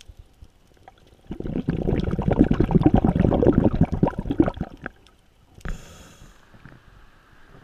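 Scuba regulator exhaust bubbles as a diver breathes out, heard underwater through the camera housing: a dense bubbling rush starting a little after a second in and lasting about three and a half seconds. A single knock comes a little later.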